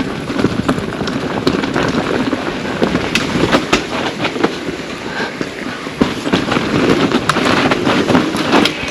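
Pivot Firebird 29 mountain bike riding down a dirt trail: tyres crunching over dirt and rocks, with many sharp clicks, knocks and rattles from the bike over rough ground.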